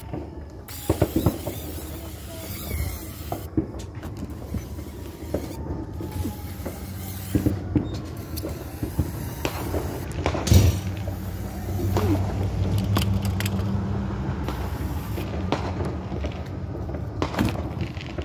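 Fireworks going off in scattered sharp bangs and pops, the loudest about ten and a half seconds in. Under them runs a steady low hum, like a vehicle engine running.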